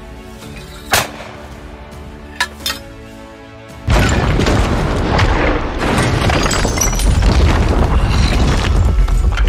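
Battle sound effects over background music: three sharp single cracks like gunshots in the first three seconds, then from about four seconds in a sudden, loud, continuous din of mortar explosions and gunfire.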